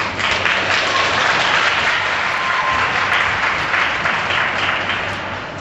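Audience applauding, a dense clatter of clapping that swells right away and tapers off near the end.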